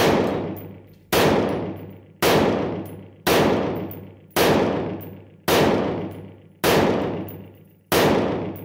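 AR-15 rifle fitted with a Dead Air Keymo three-prong flash hider firing eight single shots at a steady pace, about one a second, each shot dying away over about a second. The three-prong flash hider doesn't have the ring of a four-prong one.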